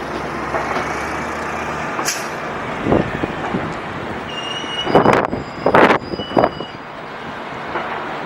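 Wind buffeting the microphone over a steady background rumble of traffic, with several strong gusts thumping the mic about halfway through and a thin high whine around the same time.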